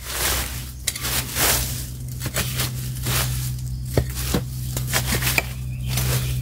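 Irregular crunching and rustling of dry bamboo leaf litter and soil, with a steady low hum underneath.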